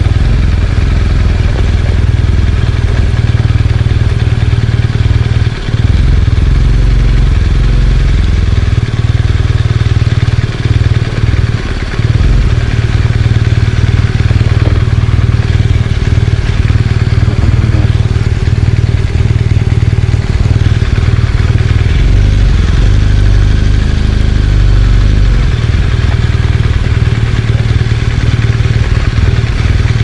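BMW R1200GS Adventure's liquid-cooled boxer twin running on the move, under heavy, steady wind rumble on the microphone, with some clatter.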